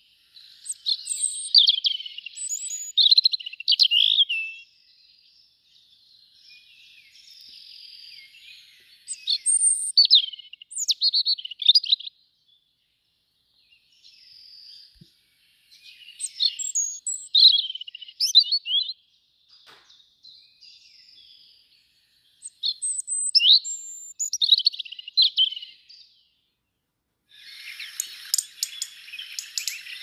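A songbird singing varied, high phrases a few seconds long, four loud ones separated by pauses, with quieter song between. Near the end a denser, hissing sound with rapid ticks begins.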